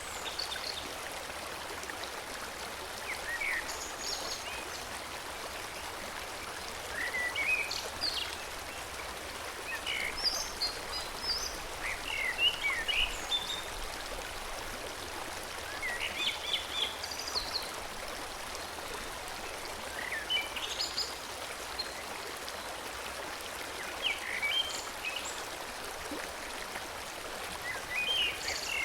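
Forest stream flowing with a steady rush, with songbirds singing short chirping phrases every few seconds over it.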